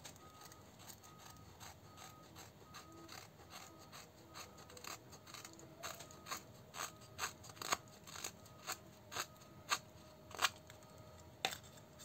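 Knife blade shaving thin curls off a wooden stick to make a feather stick, a short, dry slicing stroke about twice a second. The strokes grow louder after about four seconds.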